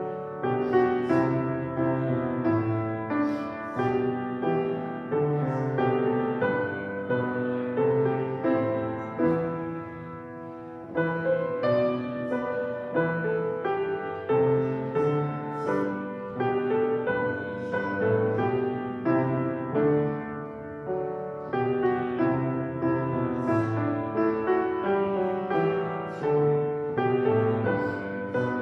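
Piano playing a hymn tune in slow, steady chords, with a brief pause about ten seconds in.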